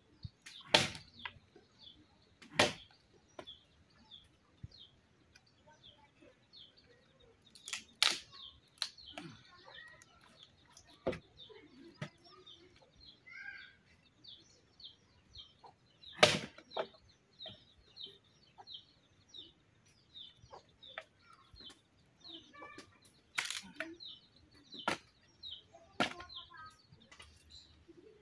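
Axe chopping firewood: about a dozen sharp chops at irregular intervals, a few seconds apart, some in quick pairs. High bird chirping repeats steadily behind them.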